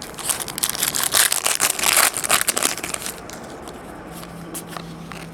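A trading card pack's wrapper being torn open and crinkled: dense, rapid crackling for about three seconds, then it dies down.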